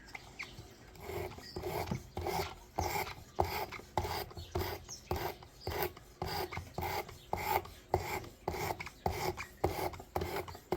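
Karambit's 8Cr13MoV steel blade drawn back and forth over 80-grit emery cloth on a Work Sharp Precision Adjust sharpener, a rhythmic rasping scrape of about two strokes a second. This is coarse-grit work setting the edge angle.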